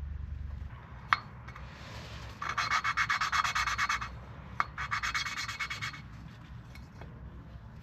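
Valve being lapped into its seat on an Audi TT Mk2 cylinder head, the suction-cup lapping tool spun quickly back and forth so the grinding paste grates between valve face and seat. It comes in two spells of a second or two, each preceded by a sharp tap.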